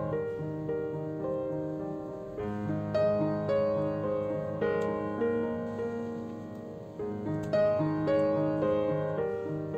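Background piano music: single notes in a steady flowing pattern over held chords, with new chords struck about two and a half seconds and seven and a half seconds in.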